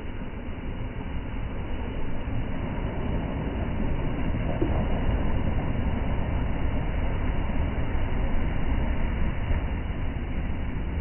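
Wind buffeting the microphone: a steady low rumble that swells over the first few seconds and stays loud.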